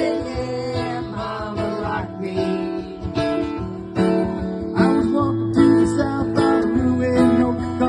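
Music led by a strummed acoustic guitar.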